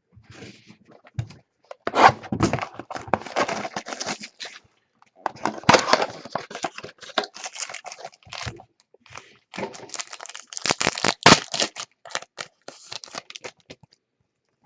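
Trading-card pack wrappers and cards being handled: crinkling and tearing of the wrapper with cards rustling, in three bursts of close crackle with a few sharper snaps.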